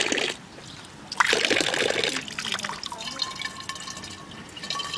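Spring water running from a public fountain's spout and splashing. The splashing drops away briefly near the start, comes back strongly, then goes on more softly.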